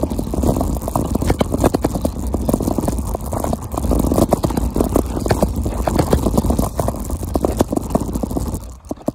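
A scooter's small hard wheels rolling fast over rough, patched asphalt: a continuous rumbling rattle full of small clicks and knocks, with wind buffeting the microphone. It stops abruptly near the end.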